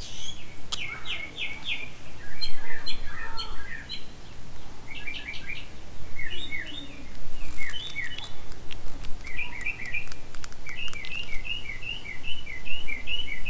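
Songbirds chirping in quick runs of short, repeated notes, with a few faint clicks.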